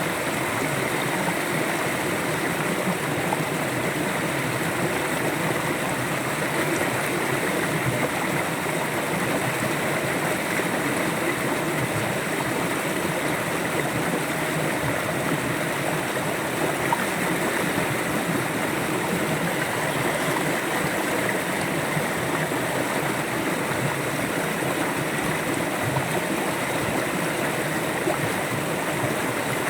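River water flowing steadily over rocks, a continuous rushing and gurgling with no breaks.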